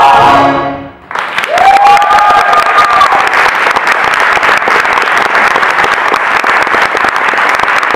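The cast's final sung chord with the band cuts off in the first second, then a theatre audience breaks into loud applause, with one long cheering whoop early in the clapping.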